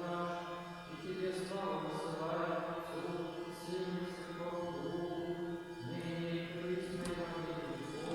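Church choir chanting slowly in held chords that change every second or two, in the style of Orthodox liturgical singing.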